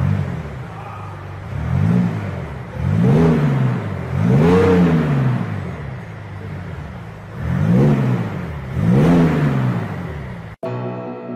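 BMW X6 M's twin-turbo V8 being free-revved while stationary: about six sharp blips, each rising and falling in pitch, with idle between them. Near the end it cuts off suddenly and music starts.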